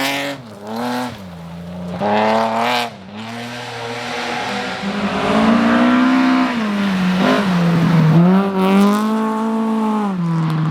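Rally car engine under hard acceleration. Its pitch climbs and drops several times as the driver shifts gears and lifts off, with a longer climb near the middle and a drop about eight seconds in.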